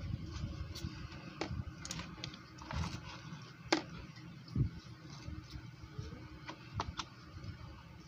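Handling noise as a flashlight is turned over in the hands: scattered light clicks and taps, the sharpest a little under four seconds in, over a low rumble.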